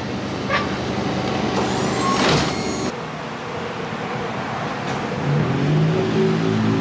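Road traffic: motor vehicles running past with a steady engine hum and a swell of tyre noise about two seconds in. Near the end one vehicle's engine speeds up, rising in pitch.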